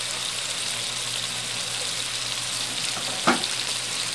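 Chicken, ginger, garlic and onion sizzling in hot oil in a wok as they are sautéed, a steady frying hiss. A single short knock about three seconds in.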